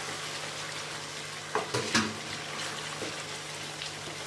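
Chicken curry gravy sizzling in a wok as a wooden spatula stirs it. A few sharp knocks of the spatula against the pan come about a second and a half to two seconds in.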